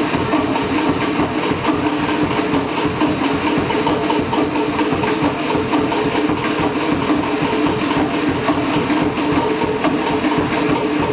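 Fast, steady Polynesian drumming, a rapid unbroken beat of the kind that drives a fire knife dance, with some held tones under it.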